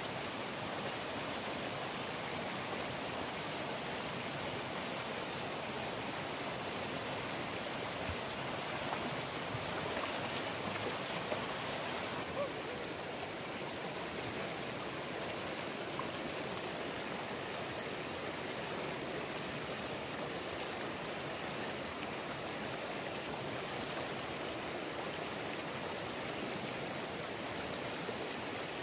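Stream water running steadily, with a few faint knocks about ten seconds in.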